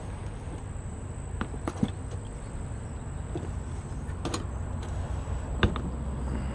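A few light clicks and knocks as 3D printer parts are handled, over a steady low hum and a faint high whine.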